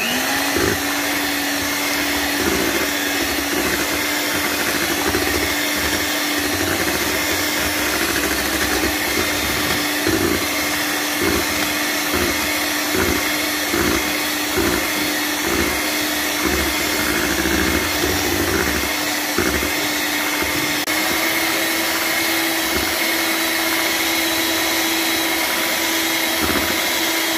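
Electric hand mixer running steadily with its twin beaters in a steel bowl, whipping cream, condensed milk and strawberry purée, with frequent short knocks. Its pitch steps up slightly about three-quarters of the way through.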